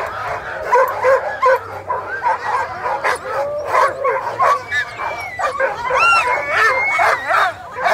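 A pack of sled dogs yipping, whining and barking, many voices overlapping in a dense, continuous din, with one longer drawn-out whine about six seconds in.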